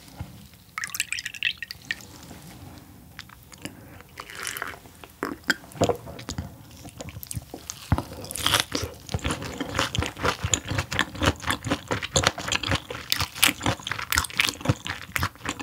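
Liquid poured from a glass bottle into a small cup about a second in, then close-miked crunchy chewing of raw gizzard shad, with rapid wet crunches and clicks through the second half.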